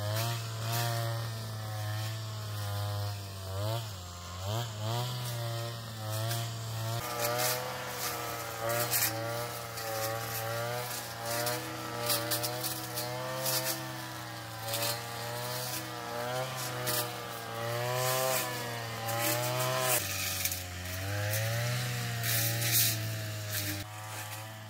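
Petrol brush cutter running under load, its engine pitch wavering up and down as it cuts through weeds and grass.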